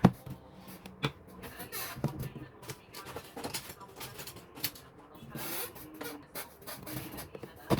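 Irregular clicks, knocks and short scrapes of small hard parts being handled, with a couple of longer scraping rubs about two seconds in and again near the middle.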